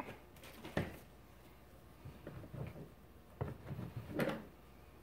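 Hand wiping an LG G5 display panel with a cloth on a towel: soft rubbing and rustling in short bursts, with a knock just before a second in and a louder flurry about four seconds in.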